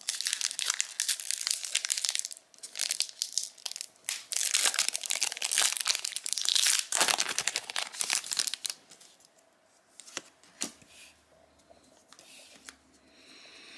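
A Disney Lorcana booster pack wrapper crinkling and being torn open. Dense crackling runs for most of the first nine seconds and is loudest midway, then only a few faint clicks follow.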